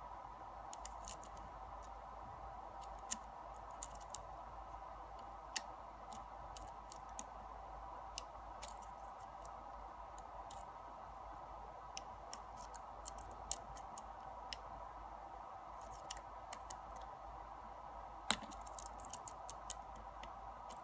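Faint, irregular metallic ticks and clicks of a hook pick and tension wrench working the pins inside a brass Yale lock cylinder, with a sharper click about eighteen seconds in.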